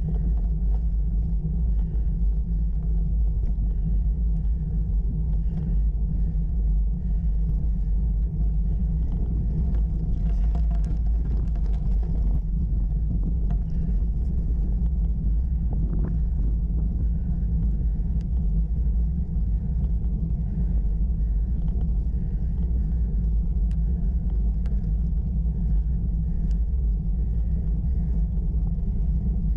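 Steady low rumble of a bicycle riding up a rough gravel track, picked up by the camera mounted on the bike: tyre and frame vibration mixed with wind on the microphone.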